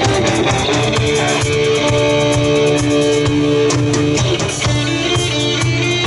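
Live rock band playing: electric guitars and bass over a drum kit, with long held notes. About three-quarters of the way through, a quick high repeated figure comes in.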